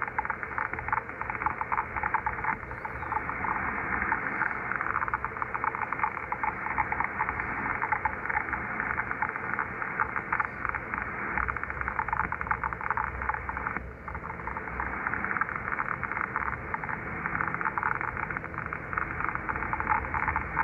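Scratching, crackling digital-sounding interference on the HF bands, received through an Icom IC-7300 transceiver: a dense, rapid, continuous crackle squeezed into the receiver's narrow audio passband, briefly dropping out about two-thirds of the way through. Its cause is unidentified.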